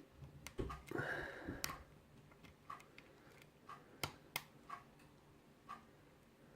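Faint, irregular small metallic clicks of a lock pick and tension wrench working the pins of a mortise lock cylinder, with a brief rubbing rustle about a second in.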